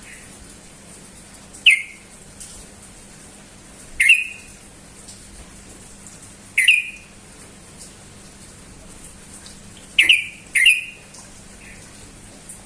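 Yellow-vented bulbul (trucukan) giving short, loud, clear calls, five in all at irregular gaps, the last two close together.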